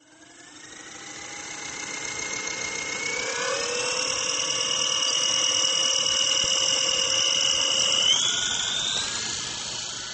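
Quadcopter's brushless motors and propellers whining steadily, heard from the drone's own camera. The pitch steps up about three seconds in and again near the end as the motors speed up. The sound fades in at the start and fades out at the end.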